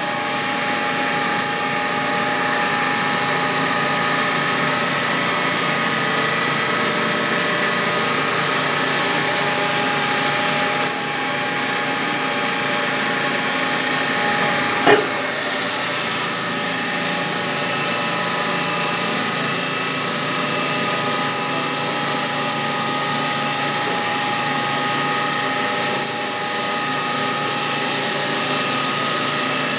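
CNC milling machine cutting a metal block under flood coolant: a steady machining whine of several held tones over a dense hiss, with one sharp click about halfway through.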